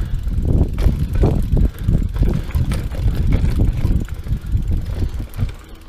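Mountain bike rolling fast over a dirt singletrack: a steady low rumble of tyres and wind on the microphone, with frequent knocks and rattles from the bike over bumps, easing a little near the end.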